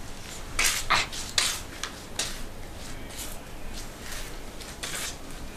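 Footsteps of a person walking, shoes scuffing on sandy ground in short, uneven scrapes.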